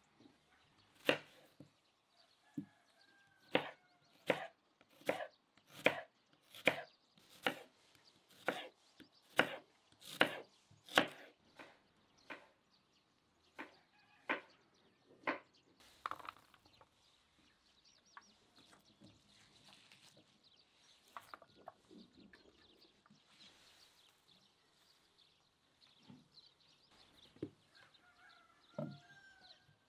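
Knife cutting vegetables on a wooden cutting board: a steady run of sharp cuts about once a second for the first ten seconds or so, then sparser ones. Chickens cluck faintly in the background.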